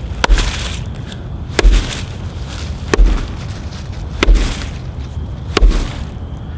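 An axe striking a piece of dense elm five times, about one blow every second and a half. Each blow is a sharp crack with a dull thud as the tough wood resists splitting.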